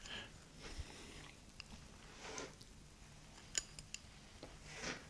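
Faint, sparse clicks and light handling of small metal parts as a fuel line and its fitting are worked onto a small engine, over a low steady hum.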